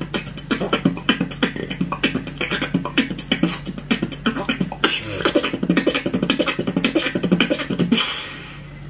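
Beatboxing: a fast run of mouth-made kick, snare and hi-hat sounds over a steady low hum, dying away near the end.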